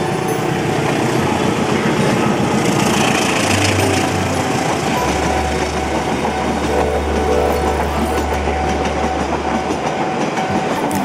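Passenger train hauled by an Indonesian Railways CC 203-class diesel locomotive passing close at speed, the locomotive going by in the first few seconds. After it the coaches roll past with a steady rumble and the clickety-clack of wheels over rail joints.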